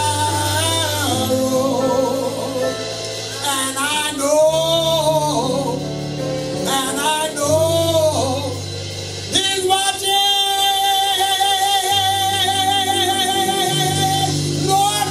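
Gospel singing by a solo male voice through a microphone, over sustained keyboard chords. About nine seconds in he holds one long note with vibrato for about five seconds.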